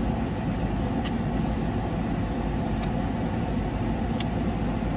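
Corvette idling with its air conditioning running, heard from inside the cabin as a steady low rumble and blower noise, with a few faint clicks about one, three and four seconds in.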